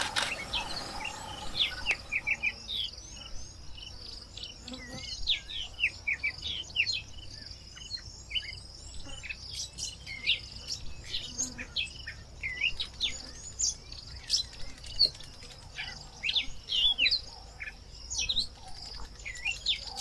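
Bush ambience: many birds chirping and whistling, with quick, varied calls throughout, over a steady high insect drone. A lower steady sound under them stops about two seconds in.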